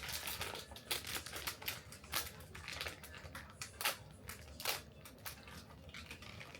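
Blind-box packaging being opened by hand, with wrapping crinkling and crackling. Sharp crackles stand out now and then.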